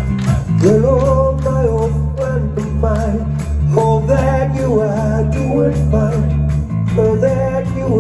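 Hard rock band playing live at full volume: distorted guitars, bass and drums, with a high melody line coming in under a second in.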